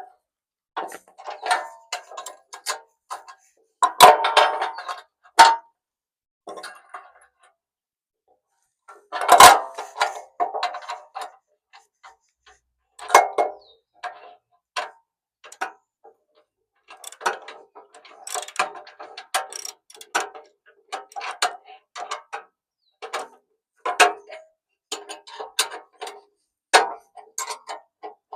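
Hand ratchet wrench clicking in short, irregular runs while bolts are run in on a bumper, with louder metallic knocks about four seconds in and again near ten seconds.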